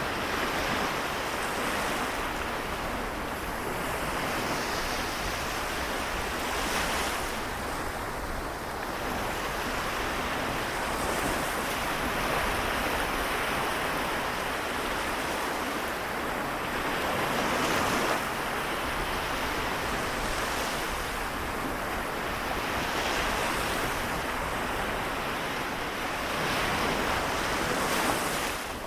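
Small waves of the Seto Inland Sea washing onto the shore, a steady wash that swells every few seconds as each wave breaks.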